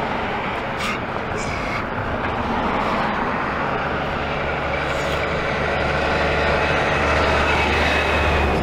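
Road traffic passing close by: the tyre and engine noise of a heavy vehicle, with a deep rumble that grows louder toward the end.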